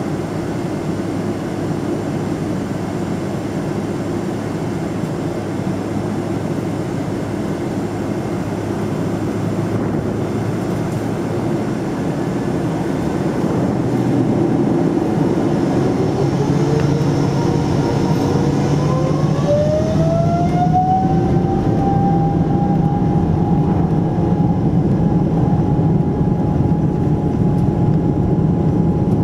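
Boeing 777-200ER jet engines heard from inside the cabin: a steady rumble, then about halfway through the engines spool up, a whine rising in pitch over a few seconds and then holding higher as the noise grows louder, as takeoff power is set.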